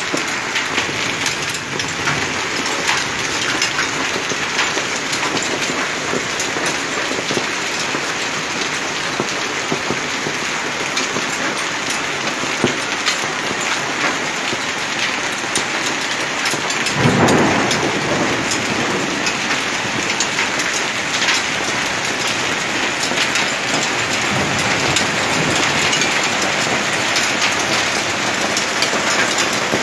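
Hail and heavy rain pelting down on pavement and a flooded street: a dense steady hiss of rain studded with many sharp ticks of hailstones striking hard surfaces. A short low rumble rises over it just past halfway.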